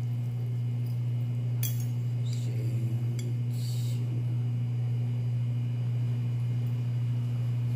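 Steady low hum throughout, with a few light clinks of a metal fork against a ceramic plate between about one and a half and four seconds in.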